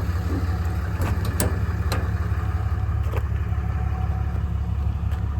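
6.7-litre Cummins turbo-diesel idling steadily, with a few sharp clicks or knocks over the top.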